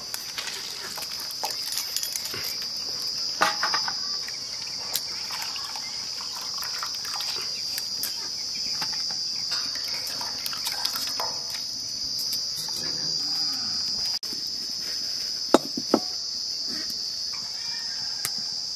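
A steady high insect chirring, with water splashing and squelching as hands wash and squeeze wild mushrooms in a steel bowl. Two sharp knocks come close together about three-quarters of the way through.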